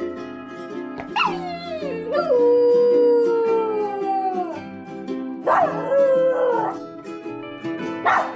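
Labrador retriever puppy howling at being left home alone: several long howls that fall in pitch, the longest held about two seconds, over steady ukulele background music.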